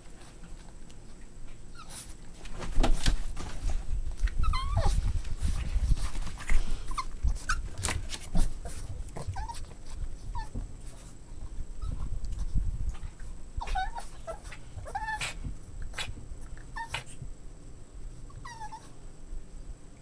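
Boston Terrier puppies whining and yipping in short calls scattered through the play, several falling in pitch, over rustling and bumping of bedding.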